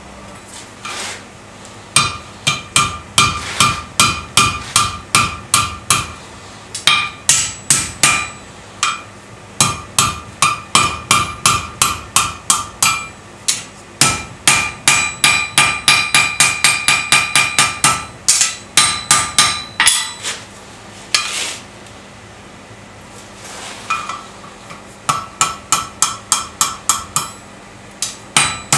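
Blacksmith's hand hammer forging red-hot steel on an anvil: quick runs of blows, about three to four a second, each with a clear ringing note from the anvil. The runs break off in short pauses, with a longer lull about two-thirds of the way through.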